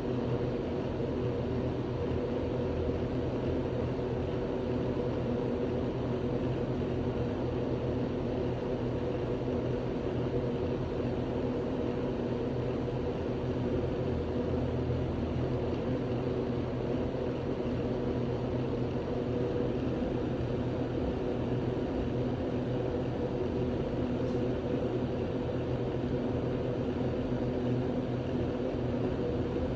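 A steady machine drone with several constant low tones, unchanging throughout.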